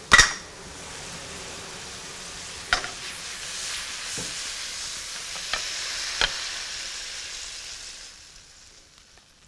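Stir-fried green beans and ground pork sizzling in a hot wok, with a loud metal clank against the wok just after the start and a few lighter clanks later. The sizzle fades away near the end as the food is tipped out of the wok onto a platter.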